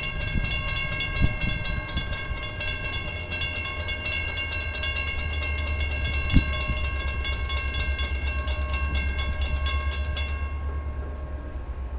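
Railroad grade-crossing warning bell ringing in fast, even strokes, then stopping abruptly about ten seconds in, over a steady low rumble.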